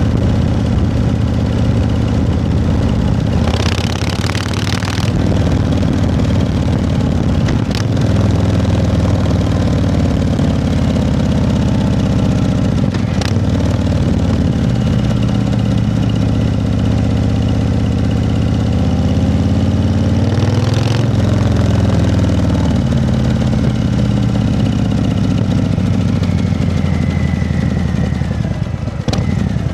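An engine idling steadily, its pitch rising and falling once about two-thirds of the way through. There is a short burst of hiss a few seconds in.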